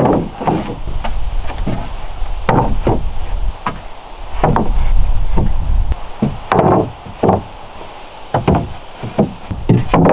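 Heavy wooden planks knocking and clattering, wood on wood, as they are set down and shifted into place across wooden floor joists. The knocks come irregularly, with a low rumble of a board being slid in the middle.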